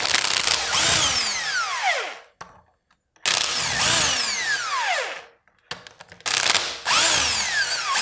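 Cordless impact driver with a hex bit socket backing out the bolts that hold a post driver's lower body to its main body, run in three bursts with a couple of short blips before the last. Each burst ends in a falling whine as the motor spins down.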